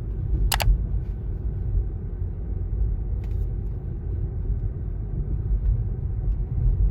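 Steady low rumble of a vehicle on the move, with a single sharp click about half a second in.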